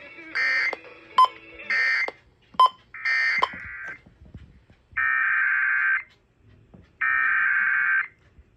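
Emergency Alert System SAME digital data bursts. Three short bursts about 1.3 s apart, with two sharp clicks between them, are the end-of-message code closing the warning. Two longer one-second bursts follow, two seconds apart, as the header of the relayed warning begins.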